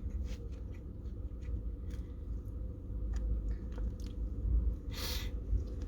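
Person chewing a mouthful of burger, with faint scattered mouth clicks over a steady low rumble. A short hiss comes about five seconds in.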